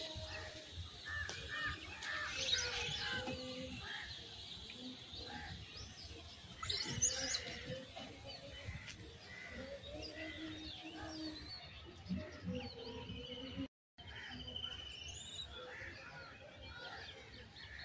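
Several songbirds chirping and calling outdoors, with a louder high trill about seven seconds in. The sound cuts out briefly about three-quarters of the way through.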